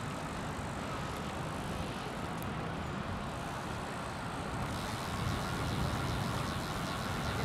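Steady city traffic and road noise heard while riding a bicycle, an even rush with no single standout sound. About five seconds in it turns brighter and a little louder.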